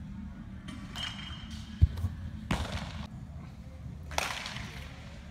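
Two sharp pops of pitched baseballs smacking into a catcher's mitt, echoing in a large indoor training hall, with a dull thump just before the first.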